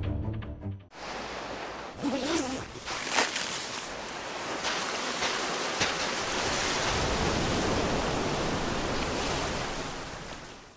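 Ocean surf breaking and washing on a beach, with a few sharp splashes in the first few seconds, fading out near the end. A short music sting cuts off in the first second.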